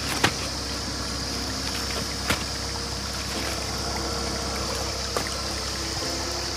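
Steady rush of runoff water, with a few sharp knocks over it, the loudest about a quarter of a second in and about two seconds later.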